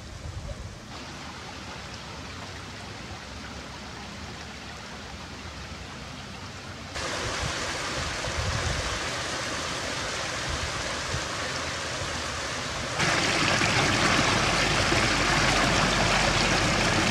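Running water from a small mountain stream and channel, a steady rushing with no tones, stepping up suddenly about seven seconds in and again about thirteen seconds in, loudest near the end as the water spills down a small cascade into a pool.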